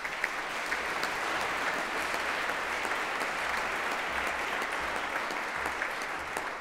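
Audience applauding: steady clapping that starts suddenly and begins to die away near the end.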